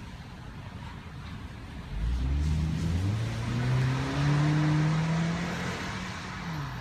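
A car going by and accelerating: its engine comes in about two seconds in with a rising pitch, holds steady, then fades near the end, with tyre noise.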